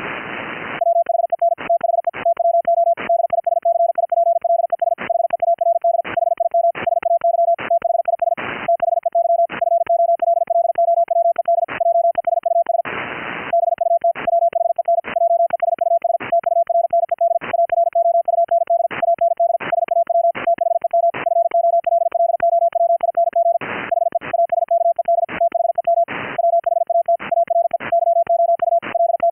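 High-speed Morse code (QRQ CW) sent as a single tone of about 700 Hz, keyed on and off very fast without letup. A few short gaps, at the start and about 8, 13, 24 and 26 seconds in, let through a brief rush of hiss.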